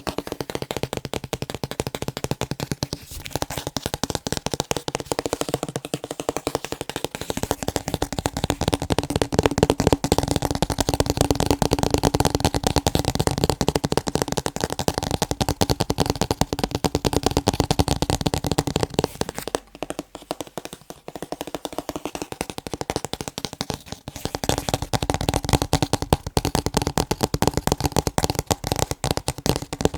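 Rapid, continuous tapping on picture frames, many taps a second, easing off into a quieter, sparser stretch about two-thirds of the way through before picking up again.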